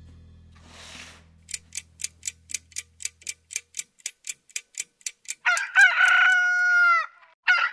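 A clock ticking evenly, about five ticks a second, after a short soft whoosh. It gives way to a loud rooster crow, and a second crow begins near the end.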